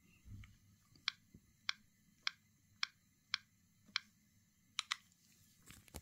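Samsung Galaxy A17 5G's keypad touch sounds as a PIN is tapped in on the lock screen: six short, sharp clicks evenly spaced, a little under two a second, then a quick pair of clicks near the end. A soft low thump comes just before the clicks start.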